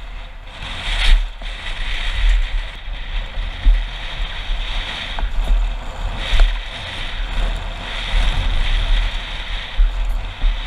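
Wind buffeting a helmet-mounted GoPro's microphone at downhill speed, with mountain-bike tyres hissing and crunching over a gravel trail. A few sharp knocks come through as the bike hits bumps.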